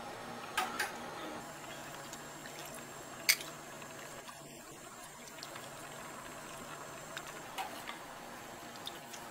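Kitchen serving sounds: broth being ladled from a steel stockpot into a bowl over a steady background hiss, with a few sharp clinks of a metal ladle on pot and dishes, the loudest about three seconds in.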